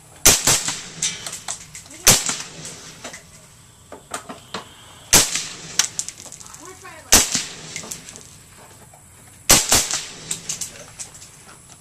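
Five suppressed 5.56 mm rifle shots from a Bushmaster ACR carbine fitted with an AAC M4-2000 suppressor, fired slowly about two to three seconds apart, each followed by a ringing echo.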